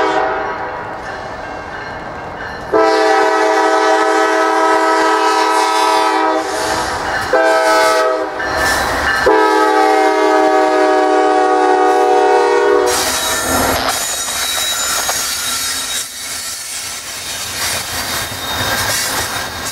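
Norfolk Southern locomotive's air horn sounding a chord: the end of one blast, then a long blast, a short one and another long one. After the horn stops, the train's steel wheels roll past on the rails.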